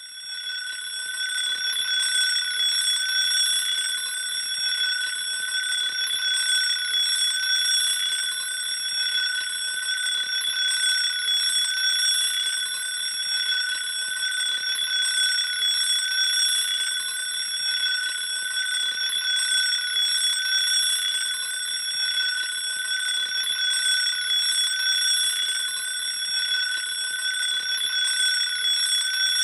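Alarm clock ringing continuously: a loud, steady, high, bell-like ring going off as the wake-up alarm at the end of a 20-minute nap timer.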